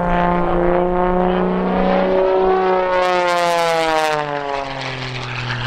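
Radio-controlled model airplane's motor and propeller in flight, its pitch rising and then falling from about four seconds in as the plane manoeuvres and passes, with a brief hiss near the middle.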